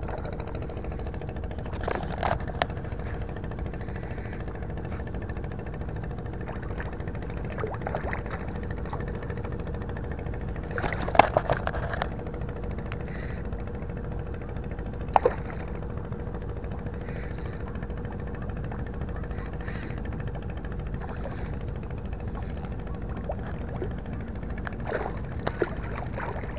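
Steady low rumble with a constant hum underneath, broken by a few sharp knocks about 11 and 15 seconds in. Near the end comes a short burst of splashing as a hooked fish thrashes at the surface beside the wall.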